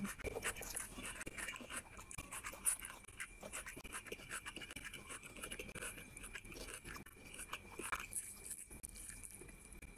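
Close-miked eating by hand: rice and fish curry being chewed, with many small wet clicks of fingers kneading rice into curry on a plate.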